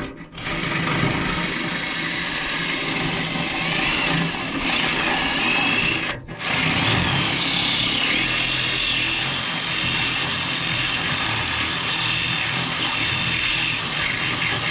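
Cordless drill with a metal drill bit running under load, drilling into metal, with a wavering high whine from the bit. It stops briefly about six seconds in, then runs on steadily.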